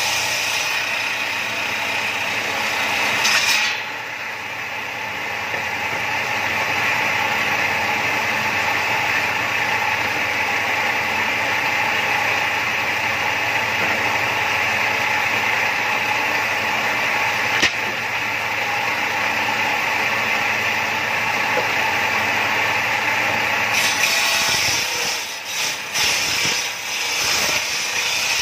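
Table saw's circular blade running steadily. It rips boards lengthwise during the first few seconds and again from about three-quarters of the way in, where the sound turns harsher and uneven; in between the blade spins freely.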